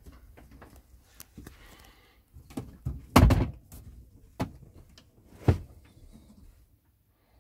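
Knocks and thumps of wooden caravan furniture being handled: a heavy thud about three seconds in, then two sharper knocks about a second apart.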